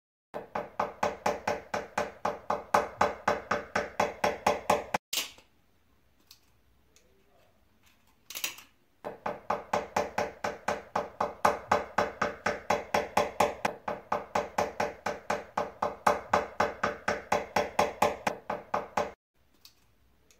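Rapid light metal-on-metal taps, about five a second with a ringing tone, as a screwdriver is driven into the rusted steel ferrule of a sickle's wooden handle to loosen it. The tapping stops about five seconds in, with a couple of lone knocks, then runs on again until near the end.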